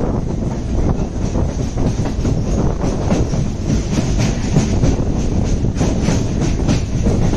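Chennai MRTS electric suburban train running at speed, its wheels clattering over the rails in a steady rushing rumble, heard from the side of the moving coach.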